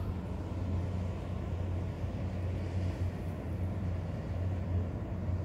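Motorboat engine running with a steady low drone.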